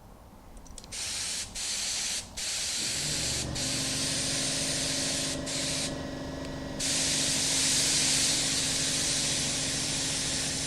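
Compressed air hissing through a new Finex FX100 spray gun, triggered in several bursts with short breaks and a longer pause around the middle, with the air being run through while the pressure is set. A low steady hum sits underneath from about three seconds in.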